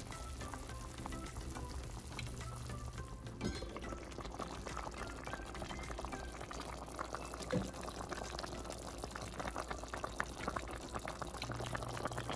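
Beef tagine broth bubbling at a simmer in an enamelled pot, a steady crackle of small bubbles that grows busier after the first few seconds, with a couple of light knocks. Soft background music plays underneath, most plain near the start.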